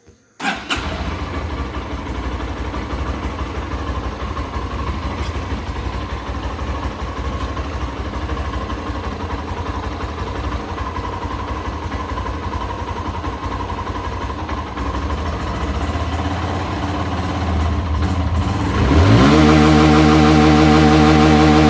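Hero Karizma ZMR's single-cylinder engine starting about half a second in and idling steadily. Near the end it is revved quickly and held at high rpm, much louder.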